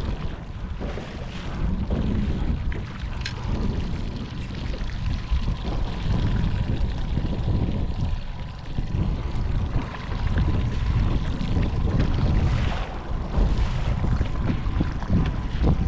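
Strong wind buffeting the camera microphone: a heavy low rumble that rises and falls in gusts.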